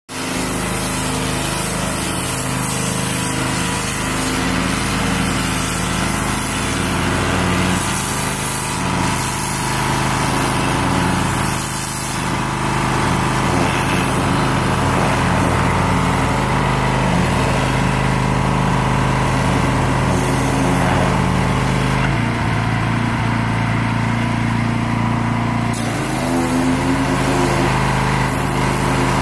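Small gas engine of a pressure washer running steadily under load, with the hiss of the high-pressure water spray. The spray drops out for a few seconds about three-quarters through and the engine note shifts, then the spraying resumes.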